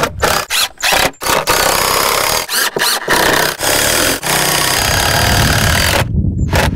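Cordless impact driver driving screws into plywood, its impact mechanism rattling under load: several short bursts, then a long run of about four seconds broken by brief pauses, and one more short burst near the end.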